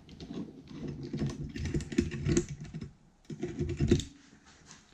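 Irregular clicking and clattering of hard objects being handled, with a short lull about three seconds in.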